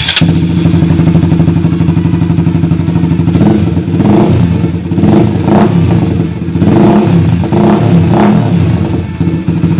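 Honda RS150R single-cylinder engine running through a Cha Rama conical replica open muffler with its silencer insert removed, loud, with a steady idle broken by several short throttle blips through the middle.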